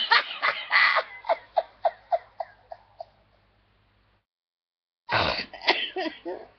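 A woman laughing helplessly: a run of short laughs, about four a second, that fade out over about three seconds, then a silent gap of about two seconds, then another loud burst of laughter near the end.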